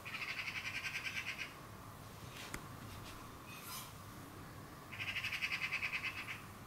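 Magpie chattering: two harsh rattling bursts of rapid calls, each about a second and a half long, one at the start and one about five seconds in. It is the alarm chatter of a magpie scolding a cat.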